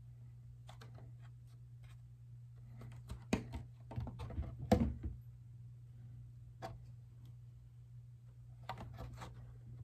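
Thin polycarbonate RC car body being handled and turned over: light clicks and crinkles of the flexing plastic, with a cluster of knocks and bumps about three to five seconds in as it is shifted against the bench mat.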